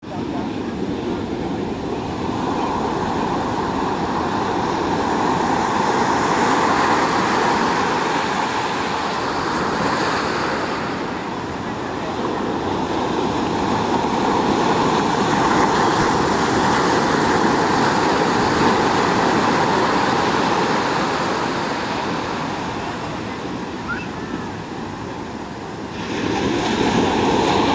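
Ocean surf breaking and washing up the beach, a steady rushing wash that slowly swells and eases.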